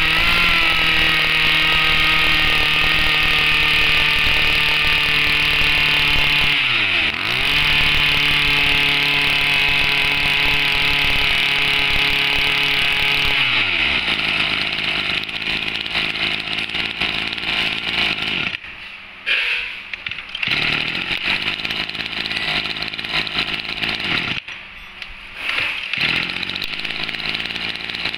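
Small two-stroke Tanaka brush-cutter engine (about 25 cc) running at a steady high speed. It dips sharply about seven seconds in and picks up again, then winds down and stops about fourteen seconds in. Quieter, irregular mechanical noise follows, with two short lulls.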